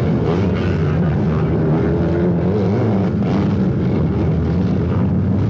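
Engines of several four-stroke sidecar motocross outfits running together under load, a steady drone whose pitch wavers a little as they climb and accelerate.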